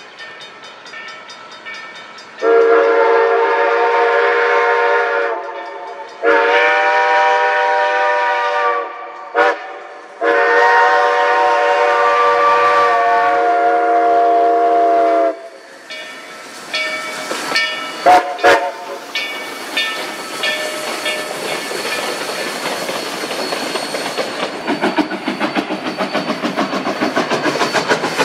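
Steam whistle of Durango & Silverton K-37 locomotive 493 blowing the grade-crossing signal: long, long, short, long. The locomotive then rumbles past, and in the last few seconds its exhaust beats pulse steadily and close.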